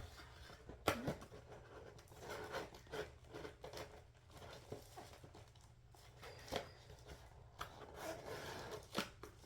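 Plastic practice nail tips being handled and put back into their case: scattered light clicks and rustling.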